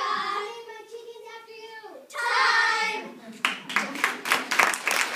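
Girls singing together, ending on a loud held note, then the audience breaks into applause about three and a half seconds in.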